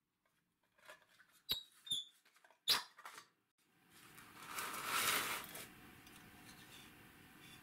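Hands lifting a metal electromechanical assembly out of its chassis: three sharp metallic clicks with a brief ring, then a rubbing scrape that swells and fades about five seconds in, as metal and wiring slide against the frame.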